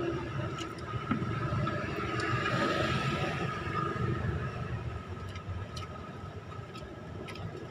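Motor traffic rumbling steadily, swelling as a vehicle passes about two to three seconds in, with a few light clicks.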